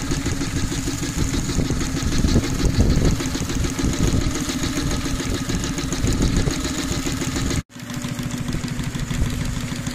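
Scale-model Case steam traction engine running steadily, a fast even rhythm of beats. The sound drops out for an instant about three-quarters of the way through.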